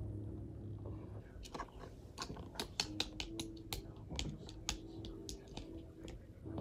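A run of light, irregular clicks and taps, about fifteen over some four seconds, over a low hum.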